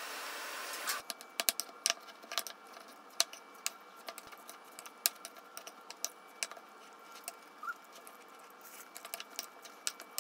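A metal spoon clinking and scraping against a ceramic bowl in quick, irregular clicks while a rice bowl is mixed. A steady hiss cuts off about a second in.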